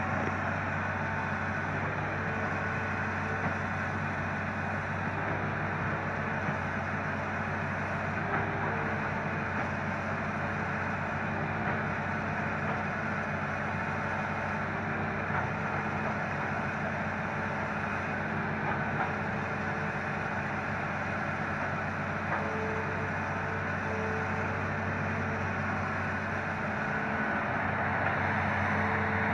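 Hitachi Zaxis 200 hydraulic excavator's diesel engine running steadily as the machine moves and digs. A higher whine comes and goes over the engine's low drone.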